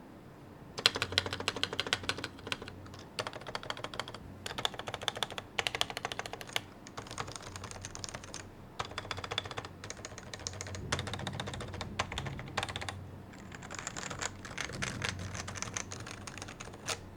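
Typing on a Topre Realforce 101 keyboard with its stock, aged variable-weight rubber dome switches, a steel plate and dye-sub PBT and ABS keycaps: quick runs of keystrokes with short pauses between, starting about a second in.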